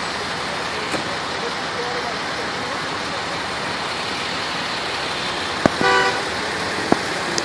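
A short vehicle horn toot about six seconds in, over steady street traffic noise, with a sharp click just before it and another about a second after.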